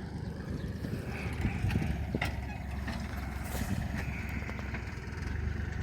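Engine of a rotary tiller running steadily with an uneven low chugging, and a sharp click about two seconds in.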